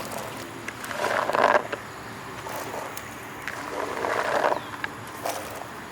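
Boiled field beans being tipped into a clay pot of curry, with two wet, splashing pours and a few clicks from the pot.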